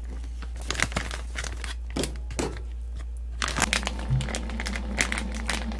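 Plastic zip-top bag crinkling and rustling in irregular crackles as raw chicken pieces are put into it and the bag is squeezed to work in the soy sauce and sake marinade.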